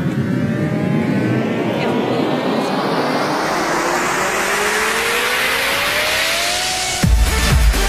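Electronic dance music build-up: a rising noise sweep with rising tones for about seven seconds, then the beat drops with heavy bass kicks near the end.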